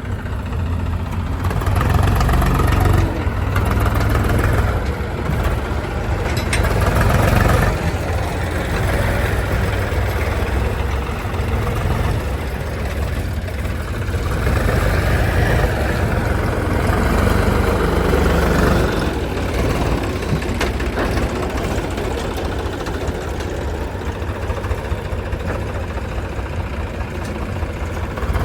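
Diesel engines of a JCB backhoe loader and farm tractors running, with a steady low rumble that swells louder for a few seconds at a time, several times.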